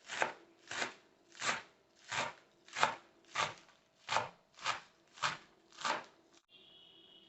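Knife chopping vegetables on a cutting board in an even rhythm, about ten strokes at roughly one and a half a second, stopping about six and a half seconds in.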